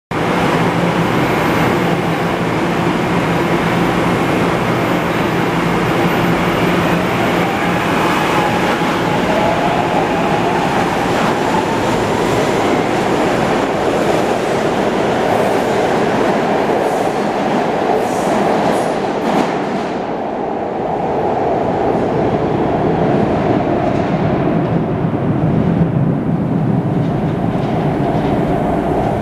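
SEPTA Market-Frankford Line Adtranz M-4 subway train pulling out of an underground station. It hums steadily at first, then a whine rises in pitch as it gets under way. As it leaves down the tunnel, the sound dulls to a low rumble.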